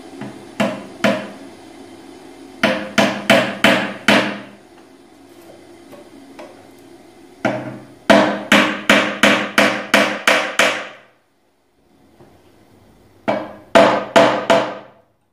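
Hammer tapping wooden wedges into the spindle ends of a Windsor chair's back to lock the spindles in their glued joints. The blows come in four quick runs of two to ten strikes, about three or four a second, with pauses between; each strike rings briefly.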